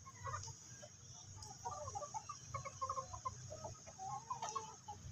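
A flock of desi chickens clucking softly while pecking at feed: many short, scattered clucks from several birds.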